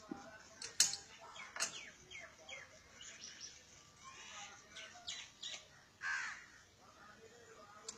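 Crows cawing and other birds calling, with a few sharp clicks as a hand-worked level-crossing barrier arm is lowered.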